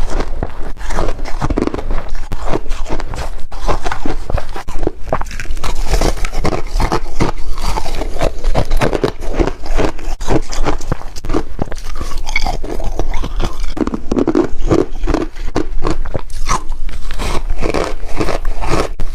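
Close-up biting and chewing of refrozen shaved ice chunks: a steady run of loud, crackling crunches.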